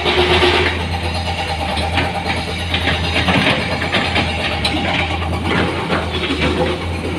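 Heavy machine's diesel engine running steadily, with irregular clattering and knocks over it.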